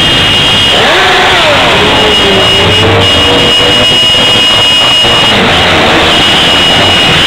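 A line of motorcycles riding slowly past, their engines revving up and down. A loud, steady high tone sounds over them for long stretches, breaking off briefly a few times.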